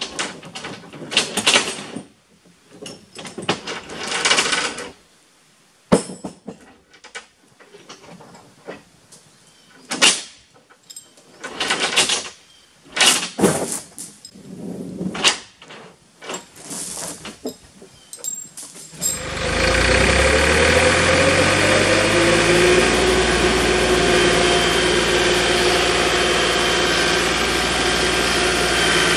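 A hand ratchet tightening the tie-down on a heavy log load, worked in repeated clicking strokes with short pauses. About 19 s in, a New Holland skid steer's engine comes in loudly, its pitch shifting for a few seconds before it settles into a steady run.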